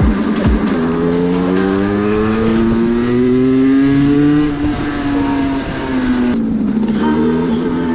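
Two-stroke moped engine revving under acceleration, its pitch climbing over several seconds. The throttle eases and the engine drops off sharply about six seconds in, then picks up again.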